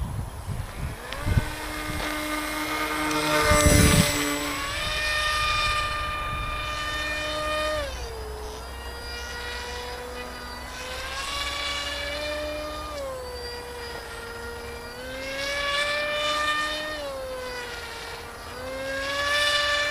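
An RC plane's 2200kv brushless outrunner electric motor and propeller whining overhead. The pitch holds for a few seconds, then drops or climbs as the throttle is cut and opened, several times over. Wind rumbles on the microphone in the first few seconds.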